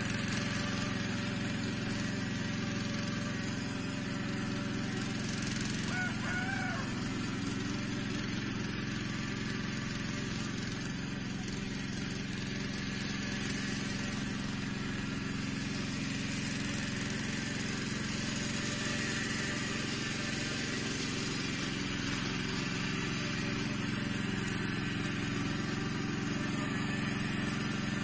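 Engine of a Yağmur YET 300 two-wheel walking tractor (patpat) running steadily.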